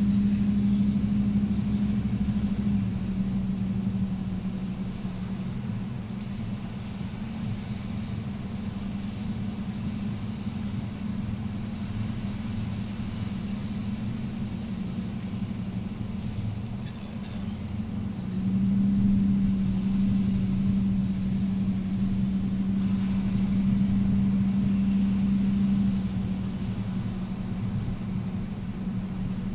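Vehicle driving on beach sand, heard from inside the cab: a steady engine and tyre drone with a low hum that grows louder for several seconds past the middle.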